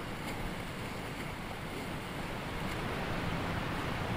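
Whitewater river rapids rushing around an inflatable raft, with water splashing over its tubes. The rush grows a little louder about two and a half seconds in.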